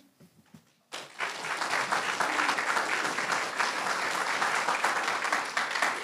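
Audience applauding, starting suddenly about a second in after a moment of near silence.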